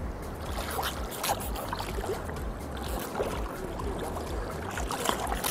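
Shallow river water splashing and sloshing around a thrashing redtail catfish (pirarara) held at the surface: short irregular splashes over a steady low rumble.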